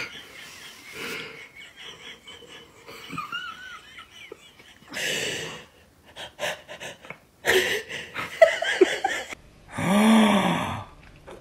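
Breathy, wheezy stifled laughter in short bursts. Near the end comes one loud, drawn-out vocal call that rises and then falls in pitch.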